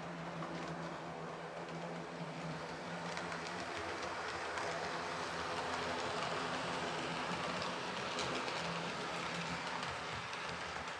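SU46 diesel locomotive running with a train, its engine note held steady under the rumble of wheels on the rails. The engine note weakens about three and a half seconds in and comes back briefly near the end.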